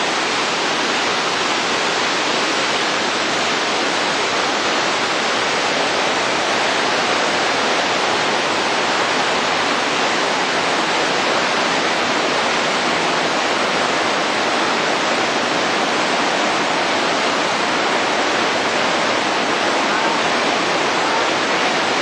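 A woodland creek's waterfall and rapids running high after rain: a steady, full rush of white water over rocks.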